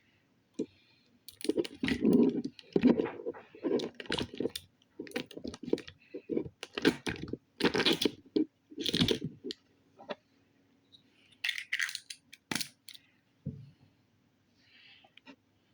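Slime being squeezed and poked by hand, giving an irregular run of sharp clicks, pops and short squelches that starts about a second and a half in and thins out near the end.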